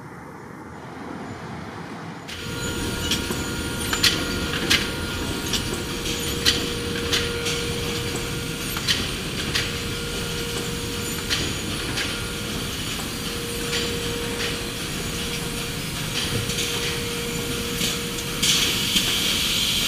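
Carton filling machine on a dairy packaging line running: a steady mechanical hum and whine with sharp metallic clacks every half second to a second as cartons are filled and moved along the conveyor. It starts about two seconds in, and a hiss rises near the end.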